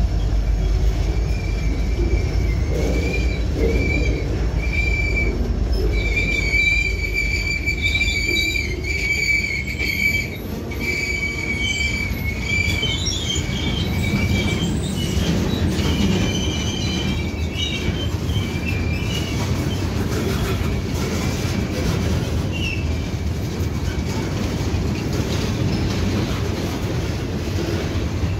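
Freight train's boxcars rolling past close by: a steady low rumble of wheels on rail, with a high-pitched wheel squeal coming and going through roughly the first fifteen seconds.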